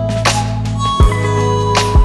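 Background electronic music with a steady beat: deep bass, a kick drum and snare-like hits, and held synth tones.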